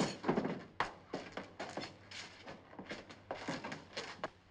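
A chair pushed back and hurried footsteps as people get up from a table and rush off: a run of irregular knocks and thuds.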